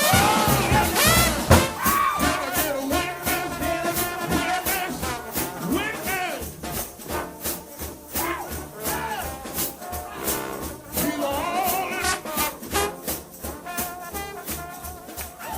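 A brass shout band, led by trombones, playing an upbeat gospel tune over a steady drum beat. The music grows gradually quieter toward the end.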